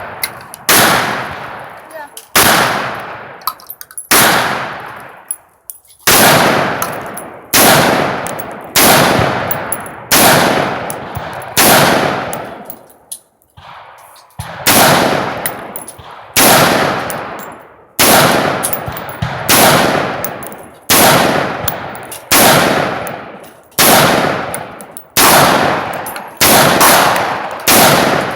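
AR-15 semi-automatic rifle fired in a steady string of single shots, about one a second, each shot ringing out and dying away before the next. There is a pause of about two seconds near the middle before firing resumes.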